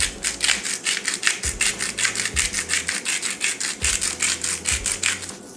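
Hand salt grinder twisted over a bowl, grinding pink Himalayan salt in a fast, steady run of dry clicks that stops just before the end.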